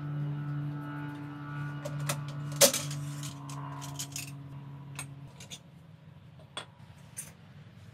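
Scattered metallic clinks and taps of tools working a motorcycle wheel on a tire changer, the loudest a sharp clink a little before three seconds in. A steady low hum runs underneath and stops about five seconds in.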